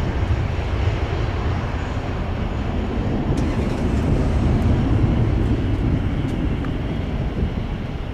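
Pratt & Whitney PW4060 turbofans of a departing Boeing 767-300ER: a steady low jet rumble as the airliner climbs away, its upper hiss thinning out about three seconds in.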